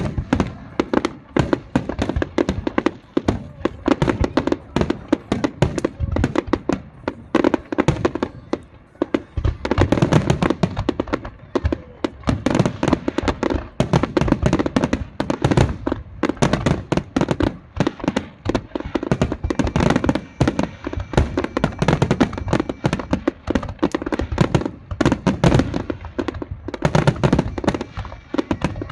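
Fireworks display going off in a dense, rapid barrage of bangs and crackles, many reports a second, heaviest in the middle stretch and again near the end.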